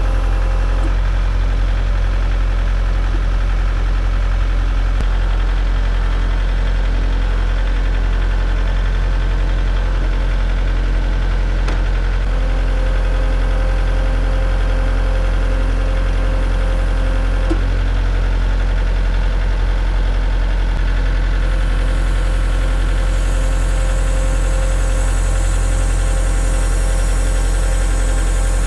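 Kubota L4701 tractor's diesel engine running steadily while the BH92 backhoe's stabilizer and boom levers are worked. A higher steady whine joins twice, about halfway through for a few seconds and again through the last several seconds with a hiss, as the hydraulics take the load of lifting the backhoe.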